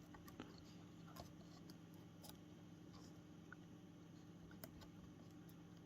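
Near silence: a faint steady hum with a few faint, light clicks scattered through it.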